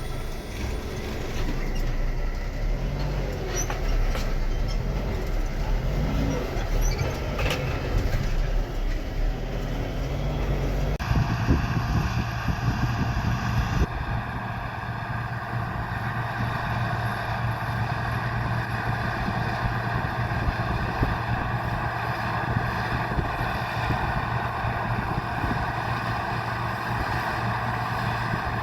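Heavy farm or truck engine running steadily, with an abrupt change about eleven seconds in to a steadier, deeper drone from a different machine or vantage.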